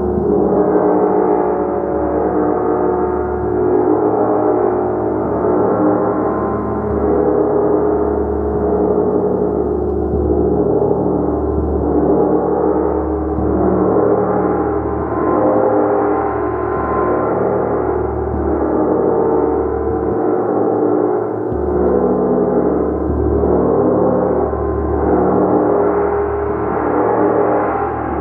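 A gong struck over and over in a steady rhythm, its overlapping tones merging into one continuous, dense wash that swells roughly every two seconds.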